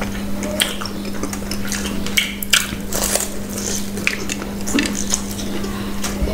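Close-miked eating: a fork clinking and scraping on a plate, with bites and chewing of a fried snack and noodles, heard as irregular clicks and crunches. A steady low hum runs underneath.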